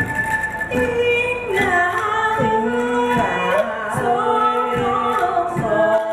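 A woman singing a melody with long held, gliding notes, starting about a second in, over bamboo instruments struck at an even beat of about one stroke every 0.8 seconds.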